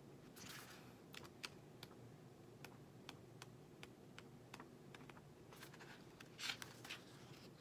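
Faint paper sounds of a small paperback guidebook's pages being thumbed through: irregular light flicks and ticks, with a soft page swish about half a second in and again near the end.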